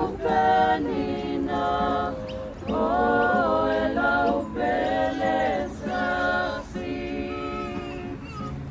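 A group of men's and women's voices singing together unaccompanied, in phrases of long held notes; the singing stops shortly before the end.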